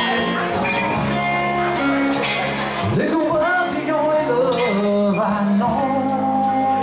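Live band playing: acoustic guitar and electric bass over a steady beat, with a man singing into the microphone from about three seconds in.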